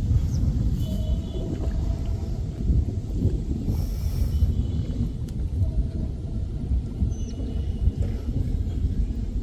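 Wind buffeting the microphone outdoors, a loud, uneven low rumble throughout, with a few faint short tones over it.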